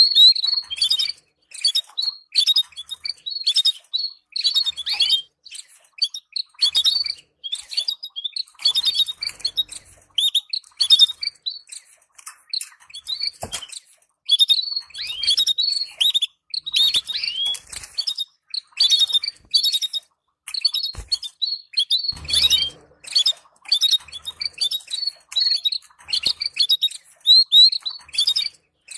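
Canaries chattering in quick bursts of short, repeated chirps with brief pauses between bursts: the stimulating 'tabtaba' chatter played to canary breeding pairs. A few sharp clicks fall around the middle and later.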